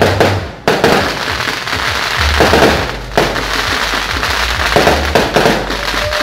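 Fireworks going off: a dense, continuous crackle with many sharp pops, over music with a deep bass beat.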